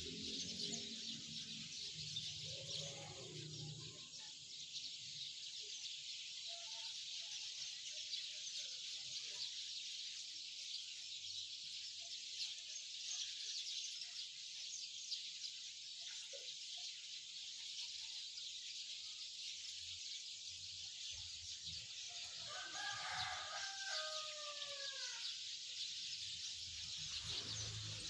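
Birds chirping over a steady high hiss, and a rooster crowing once near the end, one long call falling in pitch.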